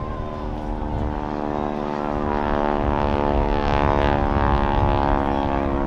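Propeller biplane's radial engine droning steadily as it flies by, getting louder to a peak about four seconds in and then easing off a little, with a low wind rumble underneath.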